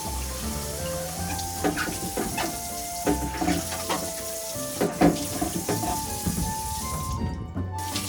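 Water running and splashing in a kitchen sink, with short clinks and knocks of containers being handled, under calm background music.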